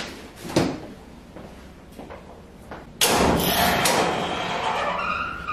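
A sliding door being opened: a few light knocks, then about three seconds in a sudden loud rolling scrape that carries on for a couple of seconds.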